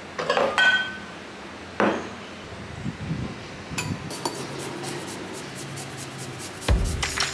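Ceramic bowls clinking as they are set down: a ringing clink about half a second in and a knock near two seconds. Near the end, ginger is rubbed on a rasp grater over a bowl in quick scraping strokes.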